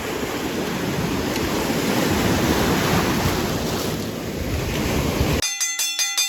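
Surf and wind buffeting the microphone, a steady rushing noise that cuts off abruptly near the end. In its place comes a quick run of bright, bell-like metallic chimes that ring on briefly.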